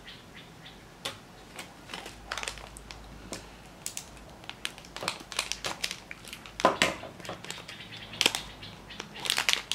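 Small plastic parts bags crinkling and rustling as they are handled and opened, with scattered short clicks and crackles. The loudest crackles come a little under seven seconds in and again near the end.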